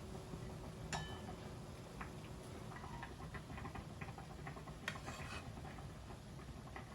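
Light handling sounds of household work: scattered small clicks and taps, with a sharp clink that rings briefly about a second in and another sharp click with a short rustle about five seconds in.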